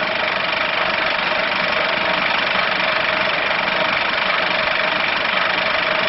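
Steady loud static hiss with two faint steady tones in it.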